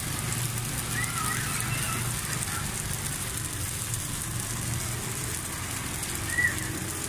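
Food sizzling in hot oil on a street vendor's pan, a steady hiss, with a brief high squeak about six seconds in.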